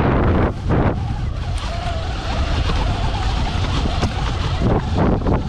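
Sur-Ron electric dirt bike being ridden up a forest trail: loud tyre and wind noise on the microphone, with a faint electric motor whine in the middle.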